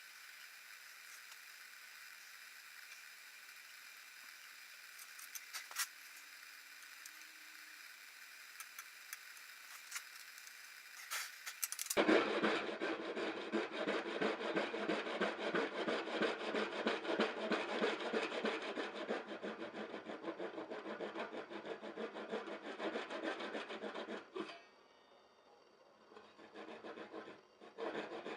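A few light clicks, then a hand saw cutting through a wooden board in quick rasping strokes. It pauses for about two seconds near the end, then starts again.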